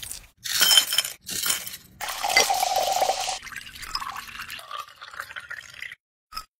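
Drink-making sounds at a stemmed glass: strawberries crushed with a metal muddler, ice clinking into the glass, then liquid poured over the ice for the last few seconds.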